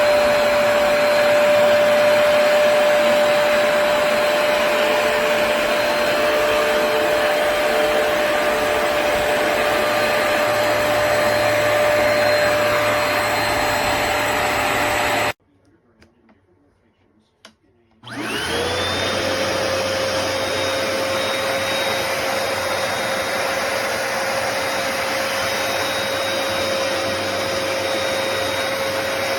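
Hoover PowerDash Pet+ compact carpet cleaner running steadily with a high motor whine. About halfway through it cuts off suddenly, there are a couple of seconds of near silence with a faint click, then it starts again with a rising whine as the motor spins back up.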